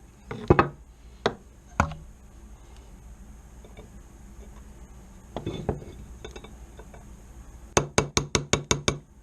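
Small metal parts of a Hi-Point C9 pistol's slide clicking and knocking as the extractor is fitted and worked by hand. A few separate knocks come in the first two seconds, then a quick run of about nine sharp clicks near the end.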